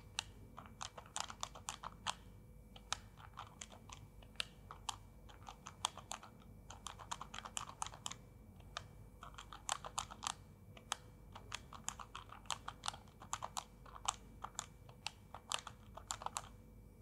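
Small plastic keys of a handheld HaptiBraille communicator clicking as text is typed on its six Braille keys, in quick irregular runs of faint clicks with short pauses between words.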